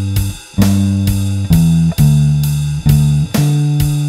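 Squier Bronco electric bass with a Nordstrand NM4v pickup, run through a Seymour Duncan Studio Bass Compressor, playing long held low notes over drums keeping a steady beat of about two hits a second. The bass drops out briefly about half a second in.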